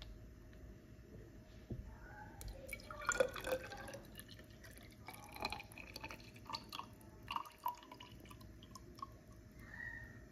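Water poured slowly from a plastic gallon jug into a plastic graduated cylinder: faint, irregular drips and trickling as the cylinder fills.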